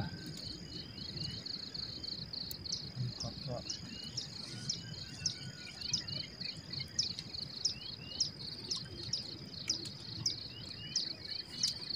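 Evening insect chorus: a steady, high, fast-pulsing chirr, joined a few seconds in by short falling chirps that repeat about once a second. A brief low murmur of a voice about three seconds in.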